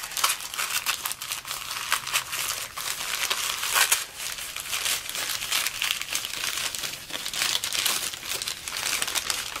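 Paper wrapping crinkling and rustling as a small crystal is unwrapped by hand: a dense, continuous run of quick crackles.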